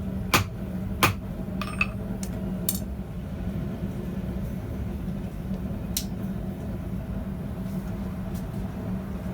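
Light metallic clinks of steel and tools at the forge, a few scattered in the first three seconds and one more about six seconds in, over a steady low hum.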